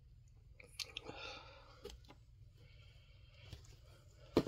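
Comic books being handled in a cardboard box: faint rustling of paper and light clicks and taps, with a sharper knock near the end.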